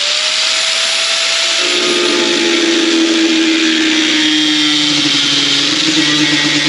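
Handheld electric power tool running steadily on the saddlebag, a loud hiss with a motor whine over it; about two seconds in the whine drops a little in pitch as the tool takes load.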